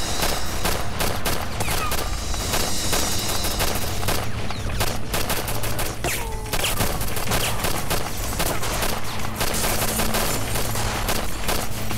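Sustained automatic rifle fire: many guns firing in rapid, overlapping bursts without pause, with a couple of short falling whines among the shots.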